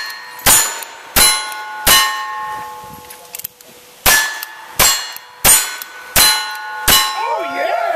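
Single-action revolver shots, each followed at once by the ring of a steel plate target being hit. Three shots about 0.7 s apart, a pause of about two seconds, then five more at the same quick pace.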